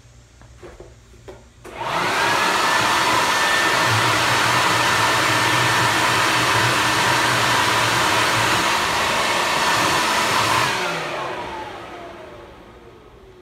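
Electric leaf blower switched on about two seconds in, running steadily at full speed with a rush of air and a high motor whine, then switched off; the whine falls in pitch as the motor spins down.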